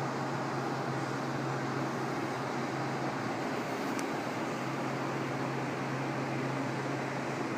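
Steady background noise of an indoor public space: an even hiss with a low hum, the hum dropping out for about a second midway.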